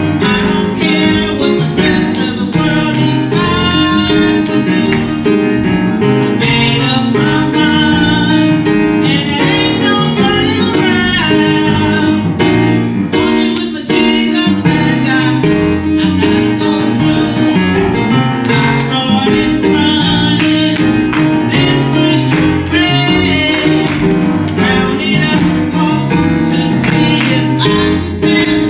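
A woman singing a gospel song solo into a microphone over instrumental accompaniment, amplified through the church sound system.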